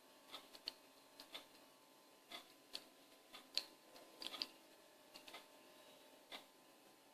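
Faint, irregular light clicks and taps from small toys being handled and set down, about a dozen over the stretch, with a quick cluster a little past the middle.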